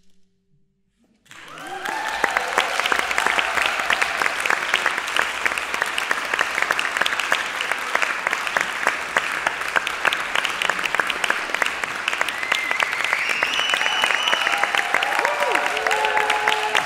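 Audience applauding: after a moment of silence the clapping starts suddenly about a second in and carries on steadily. A few voices call out over the applause in the last few seconds.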